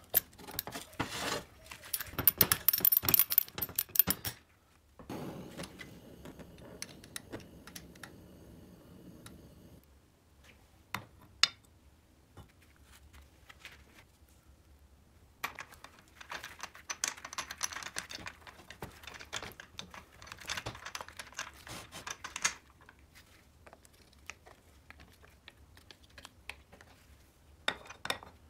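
Small metal engine parts clicking and clattering as they are handled and fitted: a Riga 12 moped's crankshaft, connecting rod and piston in its aluminium crankcase. The clicking comes in two dense spells, one in the first four seconds and one from about the middle, with a softer rustle between them, quiet gaps, and a few clicks near the end.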